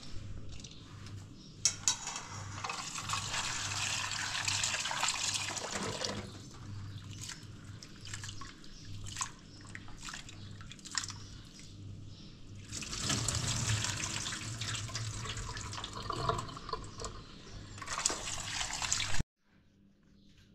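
Water running or being poured in two stretches of about four and six seconds, with light knocks and clinks between them. It cuts off abruptly near the end.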